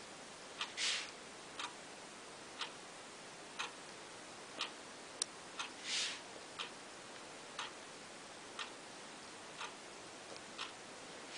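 Regular sharp ticking about once a second, with a longer, softer hiss swelling up about every five seconds.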